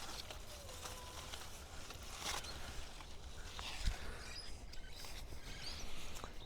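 Quiet outdoor garden sound: faint rustling and a few soft clicks of leaves and branches as guavas are picked. Several short, thin whistles from distant birds sound through it.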